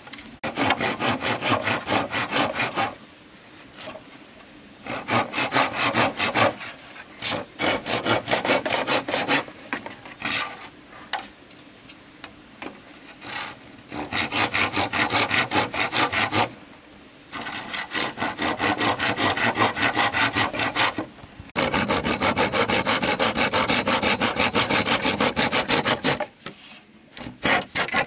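Hand saw cutting through wood, worked in bouts of quick back-and-forth strokes with short pauses between them.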